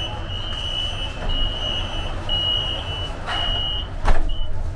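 Metro door-closing warning beeps: a high tone sounding about once a second, each beep about half a second long, over the train's steady low hum. About four seconds in the doors shut with a loud thud, followed by one short beep.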